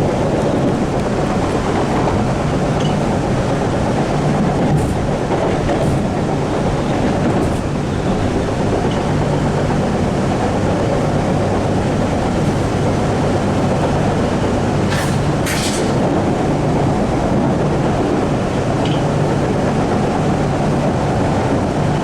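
Inside a CRRC-built MBTA Orange Line subway car running between stations: steady rumble of wheels on rail with a low steady hum. A couple of brief sharp ticks come about fifteen seconds in.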